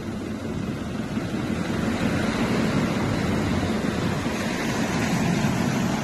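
Surf washing in on the shore, with an engine running steadily underneath.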